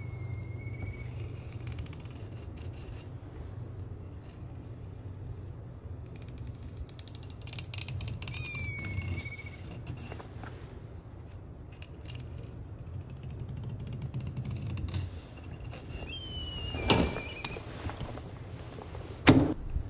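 A filleting knife drawn along a long silver fish on a plastic cutting board, with faint scraping as the blade works along the bone and a couple of sharp clicks near the end as the knife meets the board. A steady low hum lies underneath, and short high whistling tones sound three times.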